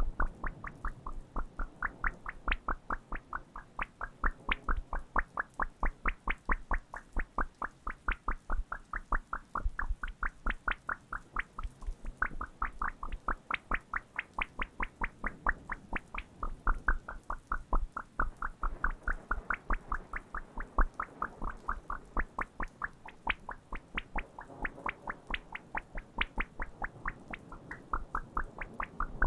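Playing cards handled close to the microphones, making a quick, even run of crisp taps, about four a second.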